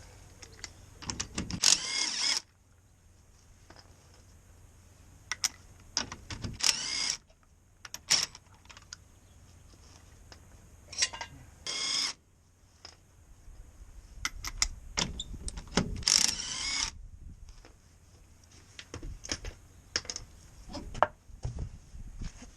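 A handheld power tool running in several short bursts of about a second each, the longest near the end, during work stripping a car's front hub. Light metallic clicks and knocks of tools and parts fall between the bursts.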